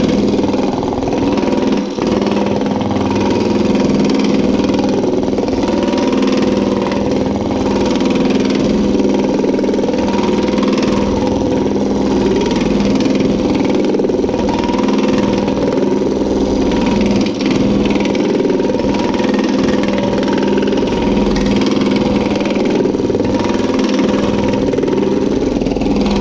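Power hammer running steadily, its flat, polished-face top die rapidly planishing a domed sheet-metal panel as it is fed back and forth. The planishing eases the shape to a gentler radius.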